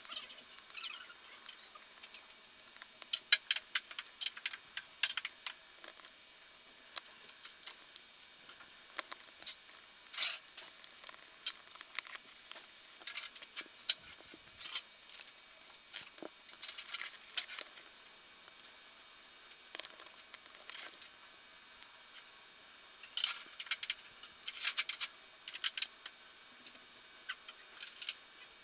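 Scattered small clicks, taps and rattles of hardware being handled: a small adjustable wrench, hex keys and metal nuts working against a 3D-printed plastic frame, with a few quick clusters of clicks.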